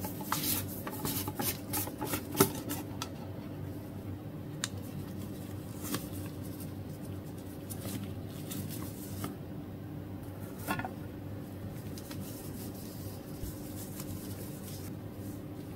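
Round metal tin being opened and unpacked by hands in nitrile gloves: a flurry of light clicks and taps from the lid in the first few seconds with one sharp knock, then only occasional soft handling clicks. A steady low hum runs underneath.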